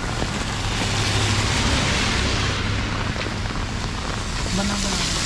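Rain and traffic on a wet street: a steady hiss of rain and tyres on wet tarmac over a low engine hum from vehicles driving past. The hiss swells about two seconds in.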